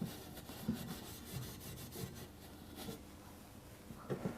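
Steel wool rubbing over a freshly soldered copper pipe fitting, scrubbing off the flux residue, in faint, irregular strokes with a few soft knocks.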